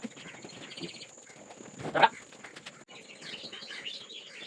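Small birds chirping and twittering, with one loud, short call about two seconds in.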